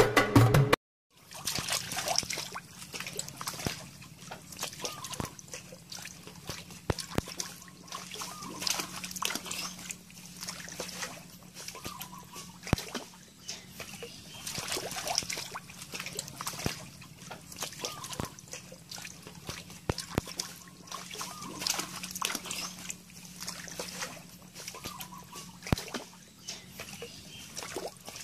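Shallow muddy water splashing and sloshing in irregular bursts as frogs move about in it, over a steady faint low hum.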